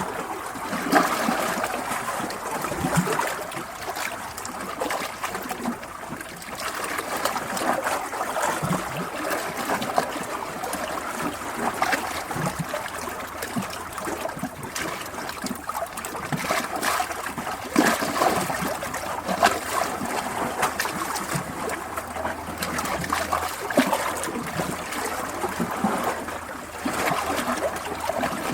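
Water trickling and splashing steadily, with many small irregular splashes and gurgles, like a shallow stream running over stones.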